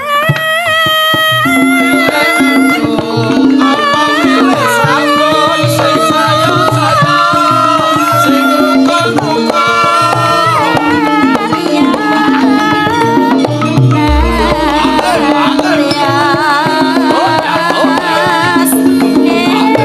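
Javanese gamelan playing, with kendang hand drums keeping a steady pattern under a wavering singing voice. A deep, low gong-like stroke sounds about two-thirds of the way through and fades out over a couple of seconds.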